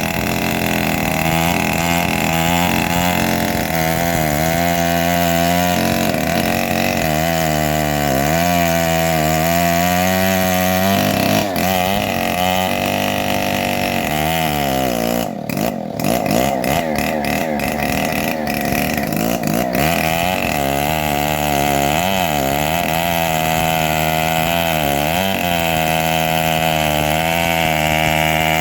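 Engine of a homemade bandsaw sawmill running steadily, its pitch wavering up and down throughout.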